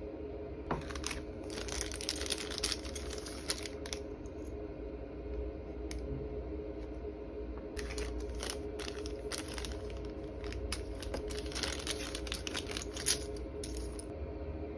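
Plastic and paper packaging being handled and unwrapped, crinkling and rustling with light clicks, in two stretches with a pause between. A steady low hum runs underneath.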